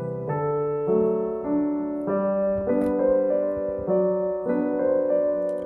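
Background piano music: a gentle solo piano melody with notes changing about every half second.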